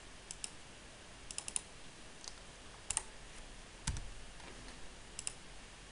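Scattered short, sharp clicks from working a computer, several in quick pairs, with one louder click and a dull thump about four seconds in.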